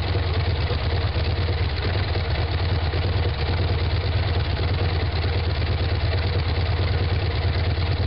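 Continental W670-A9 seven-cylinder air-cooled radial engine idling steadily, with a deep, even drone.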